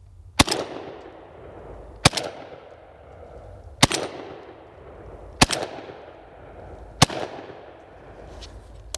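High Standard Model 10B 12-gauge semi-automatic bullpup shotgun fired five times at an even pace, about one shot every 1.6 seconds. Each report trails off in echo before the next.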